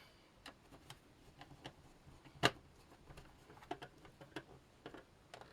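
Scattered light clicks and taps of small screws and plastic case parts being handled, with one sharper click about two and a half seconds in.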